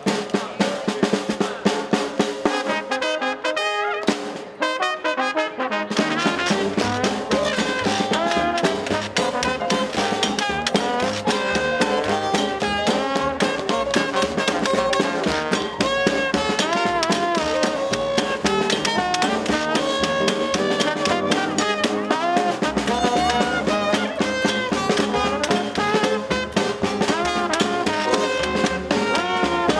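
Traditional New Orleans-style jazz band playing live, with percussion from a drum struck with wooden cooking spoons and a washboard. The rhythm plays nearly alone at first; about six seconds in, trombone and trumpet take up the melody over an upright bass.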